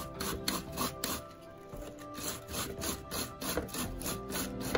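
Cabbage being grated on a stainless steel box grater: repeated rasping strokes, about three a second, with a short break about one and a half seconds in.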